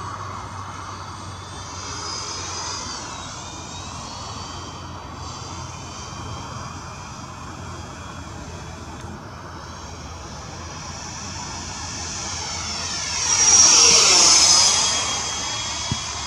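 Electric ducted fan of a Freewing MiG-21 RC jet whining as the model flies around. About 13 seconds in, the whine swells loudly and its pitch drops as the jet makes a close pass, then fades.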